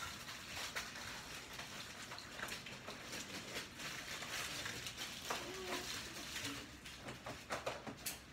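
Steady hiss with scattered light knocks and clicks as items are handled and taken from pantry shelves.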